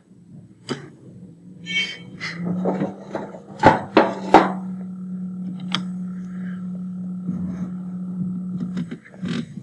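Several sharp knocks, the loudest three close together near the middle, over a steady low hum that starts about two seconds in and a higher steady tone that joins it partway through; both stop shortly before the end.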